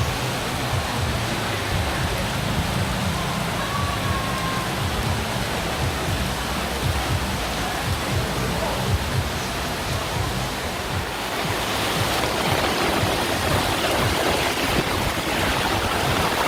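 Heavy tropical rain pouring steadily, an even rushing hiss that grows louder about two-thirds of the way through.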